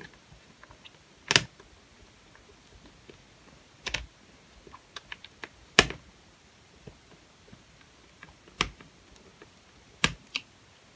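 A screwdriver working the last case screw into the plastic underside of an HP Mini 110 netbook: scattered sharp clicks, about six, one every second or two to three.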